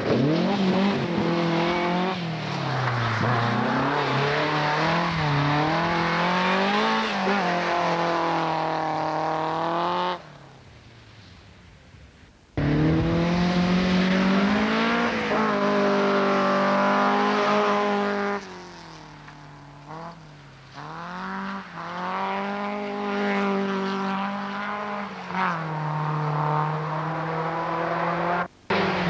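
Rally car engines running at full throttle as the cars pass, the engine note climbing and falling again and again with each gear change and lift of the throttle. The sound drops away abruptly about ten seconds in and comes back loud two seconds later, then dips again for a few seconds around twenty seconds in.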